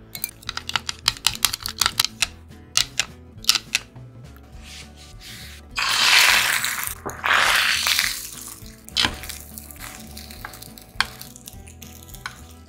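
A utensil clicks quickly against a measuring cup as seasoned beaten egg is stirred. About six seconds in, the egg is poured into a hot oiled tamagoyaki pan and sizzles loudly for two or three seconds, followed by a few taps in the pan. Background music plays throughout.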